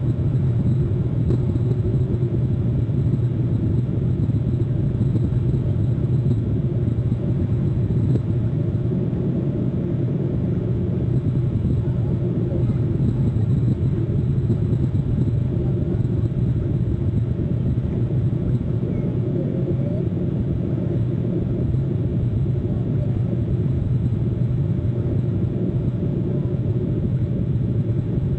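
Steady low outdoor rumble, even and unbroken, with no distinct calls or knocks standing out.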